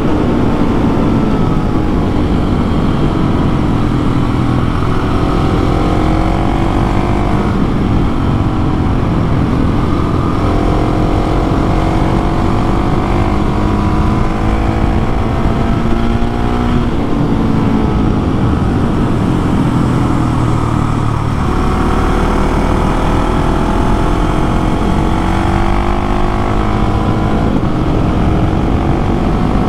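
Husqvarna 701 supermoto's single-cylinder engine under way while ridden, its pitch climbing over several seconds and then dropping again, several times over, as the rider rolls on and off the throttle.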